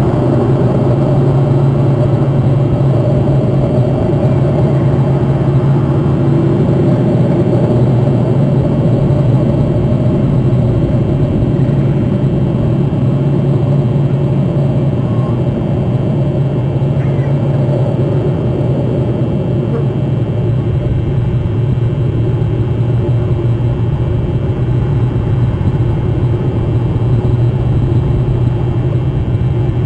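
Steady, loud low rumble with a constant low hum, unchanging in level.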